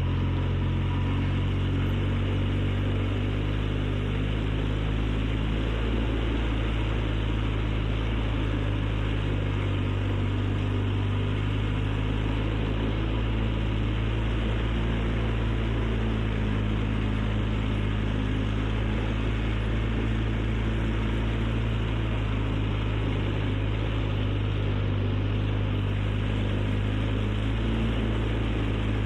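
ATV engine running steadily at an even pitch while the machine is ridden along.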